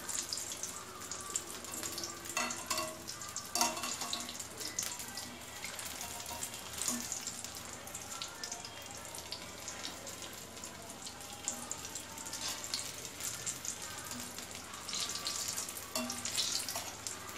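Vegetable balls deep-frying in hot oil in a kadai: a steady sizzle with constant fine crackling.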